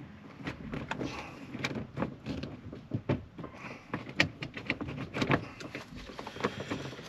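Irregular clicks, knocks and a few short scrapes of a screwdriver and hands working on a pickup truck's door trim.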